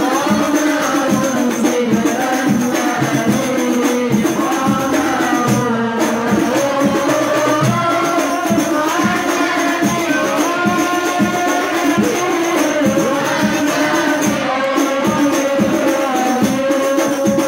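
Hadroh: a singer leads an Islamic devotional song (sholawat) into a microphone over rebana frame drums beating a quick, steady rhythm.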